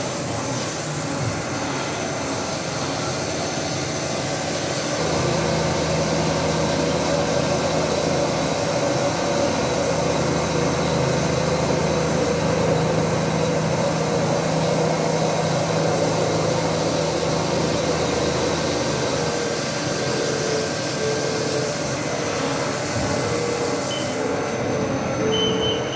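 Haas VF3 vertical machining center running a cut, its spindle and coolant making a steady machining hum and hiss, likely the finishing pass. About two seconds from the end the hiss drops away and a pulsing tone comes in.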